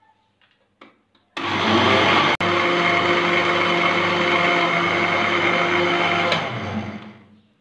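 Super General blender grinding soaked rice with milk: the motor comes on about a second and a half in, runs with a steady whine, then is switched off and spins down near the end.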